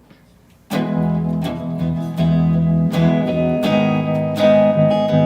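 Acoustic guitar strumming chords in a steady rhythm, starting abruptly under a second in as a song's instrumental opening.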